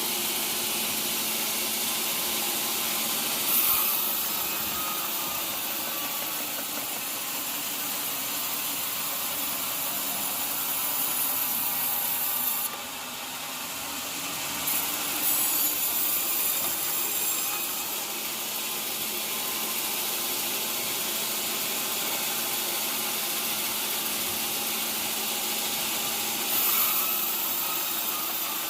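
Sawmill saw cutting through teak wood, a steady hissing run of machine noise that swells louder a few times and dips briefly midway.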